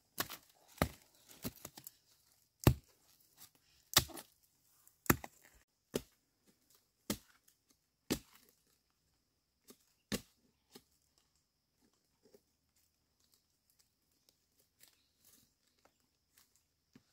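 Short-handled hoe chopping into forest soil and roots to dig out a bamboo shoot: a sharp strike about once a second. After about eight seconds the strikes thin out to a few, then only faint scrapes and rustles.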